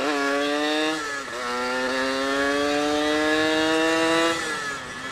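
Suzuki Satria two-stroke motorcycle engine with a racing exhaust, accelerating under throttle. The pitch rises, dips briefly about a second in, then climbs slowly and steadily before falling away as the throttle closes near the end.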